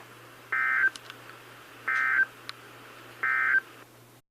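Emergency Alert System end-of-message data bursts: three short, identical two-tone digital squawks about 1.4 s apart, marking the end of the alert broadcast. A faint steady low hum runs underneath, and the sound cuts off just before the end.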